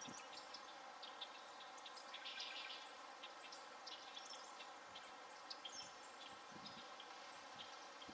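Faint, scattered chirps and calls of small birds over a steady background hiss.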